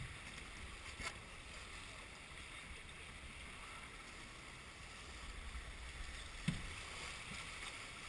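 Water rushing along the hull of a sailboat under way, a steady hiss over a low rumble. A sharp click about a second in and a low knock later on.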